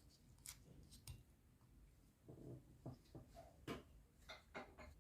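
Near silence with faint scattered clicks and soft knocks in a small room, the sharpest a little before four seconds in.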